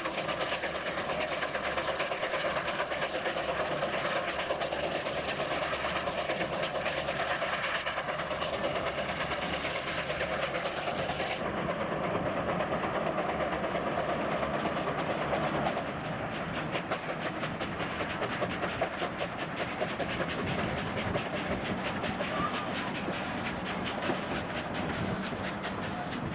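1914 Rumely 20-60 tractor working under load pulling an eight-bottom plow, its engine exhaust beating in a fast steady rhythm. The sound drops a little about two-thirds of the way through.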